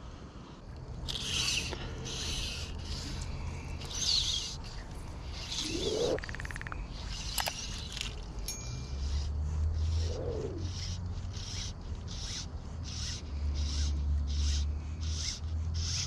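Fly line stripped in short pulls through the rod's guides during a retrieve: a rasping rub repeated over and over, settling into about two pulls a second in the second half. A low rumble runs underneath and grows louder in the second half.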